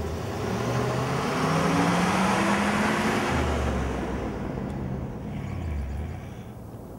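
City traffic: a vehicle passes, its noise swelling and fading over about four seconds, over a low steady engine hum.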